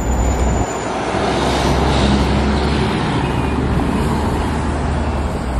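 Busy road traffic: a city bus's diesel engine running low and steady close by, with cars passing and a swell of passing traffic about two seconds in.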